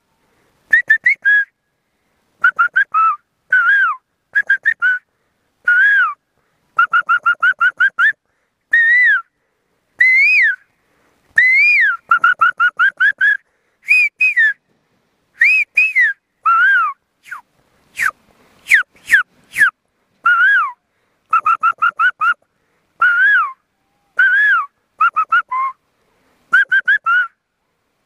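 A man whistling by mouth in imitation of the Indian cuckoo's 'kafal pakyo' call: short groups of quick high whistled notes, some gliding up then down, repeated with brief gaps. A few sharp clicks come about two-thirds of the way through.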